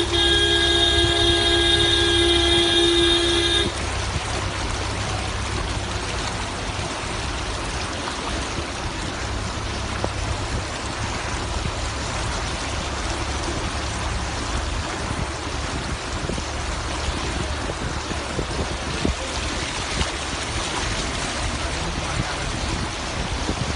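A vehicle horn held steadily for about the first four seconds, then cut off. After it comes a steady rush of noise with a low engine rumble as a car drives slowly through deep floodwater.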